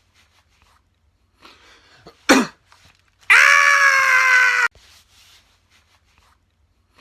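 A person's sharp, short sneeze a little over two seconds in, followed about a second later by a loud, long held high-pitched vocal 'aah' lasting about a second and a half that cuts off abruptly.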